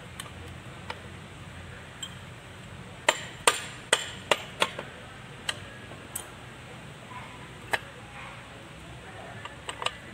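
Sharp metallic clinks of steel gears and shafts being handled and fitted inside a Kubota B6001 tractor's open transmission case: a quick run of about six clinks three to five seconds in, then scattered single clinks.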